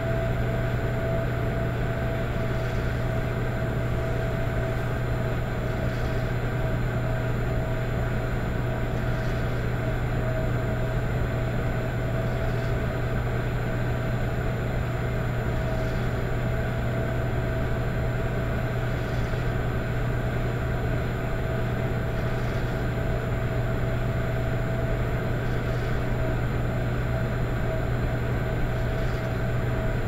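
An electric fireplace running with a steady hum, with a soft rhythmic whoosh about every three seconds that sounds like gentle snoring.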